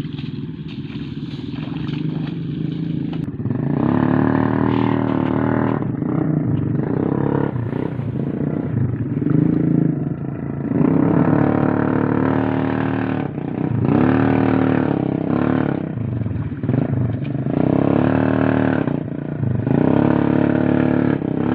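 Taksi gabah motorcycle engine, low at first, then revving hard in repeated surges every three or four seconds, with some clatter.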